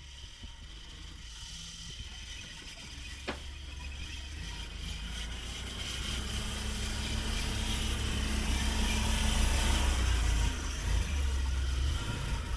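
A motor vehicle's engine running with road noise, growing steadily louder for about ten seconds and then easing slightly.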